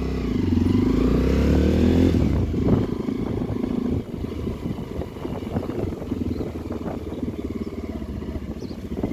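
Motorcycle engine revved up, its pitch rising for about two seconds, then dropping back to a lumpy, rapid idle for the rest of the time.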